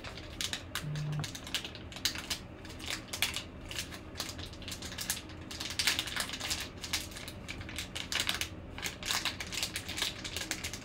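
Foil trading-card pack wrapper crinkling and tearing in the hands as the pack is opened and the cards are handled: a continuous run of irregular crackles and rustles.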